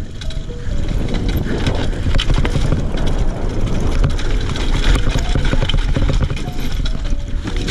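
Fuji Addy One.5 mountain bike riding fast down a dirt forest trail: knobby tyres rumbling over loose dirt and leaves, with constant small rattles and knocks from the bike, and wind buffeting the microphone.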